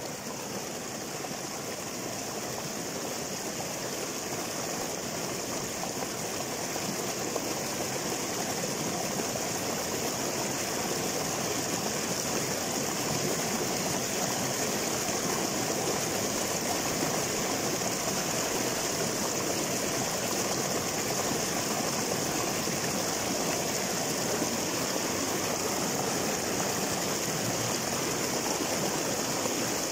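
Shallow river water rushing and splashing steadily over a small cascade between boulders, growing a little louder over the first ten seconds or so.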